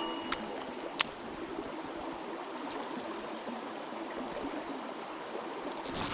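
Mountain stream running, a steady rush of water. Background music ends with a couple of ticks in the first second and comes back near the end.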